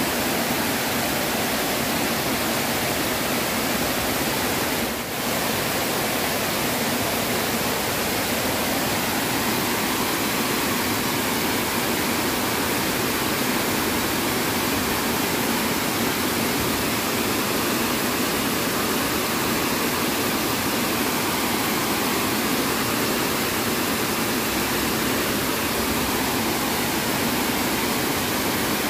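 Water spilling over a stone weir into a river pool: a steady rushing of falling water, with a brief dip about five seconds in.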